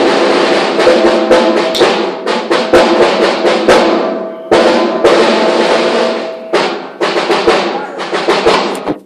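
Timpani solo: fast rolls and strokes across several kettledrums tuned to different pitches, their tones ringing under the mallet strokes. The sound dies down about four seconds in, comes back with a loud attack, and fades out near the end.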